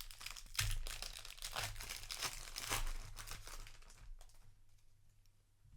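A Magic: The Gathering set booster pack being torn open, its foil wrapper crinkling and crackling for about four seconds before it dies down to a few faint clicks.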